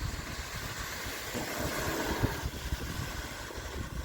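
A car driving past on a wet road, its tyre hiss swelling in the middle, with a brief thump a little over two seconds in as it crosses a speed bump.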